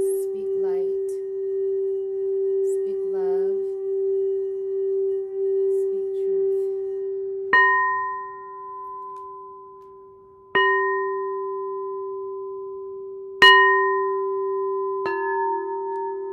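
Singing bowl held in a steady, gently pulsing hum, then struck four times a few seconds apart, each strike ringing on with higher overtones. The last strike comes quickly after the third and adds a slightly different set of ringing tones.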